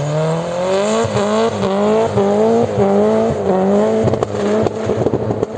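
Subaru rally car's flat-four engine at high revs while the car slides sideways, its pitch climbing and falling back again and again as the throttle is worked. A burst of sharp crackling comes about four seconds in.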